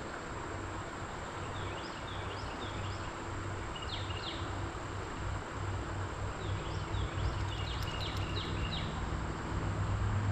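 Creek-side woodland ambience: a steady high insect drone, with a bird chirping in two bouts of short, quick notes. A low rumble runs underneath and grows slightly toward the end.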